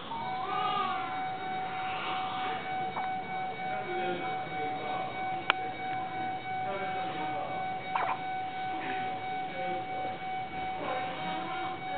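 A premature newborn's squeaky hiccups: three short, sharp hics a few seconds apart, the second and third the loudest. A steady electronic tone from the special-care equipment sounds underneath throughout.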